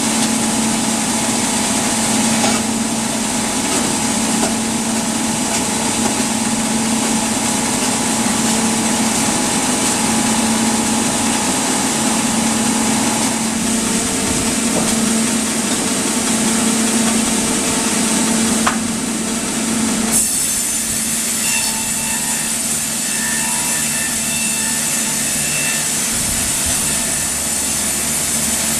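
Sawmill saw running and cutting through wood over a steady machine hum. The sound changes abruptly about two-thirds of the way through.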